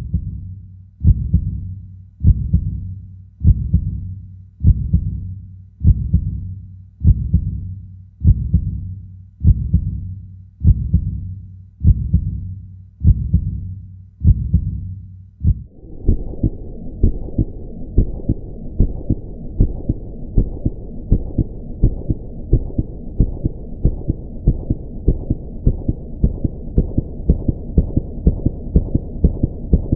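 Deep, low thumps repeating about once a second, each dying away, then from about halfway a faster run of ticks over a steady hum, which cuts off suddenly at the end.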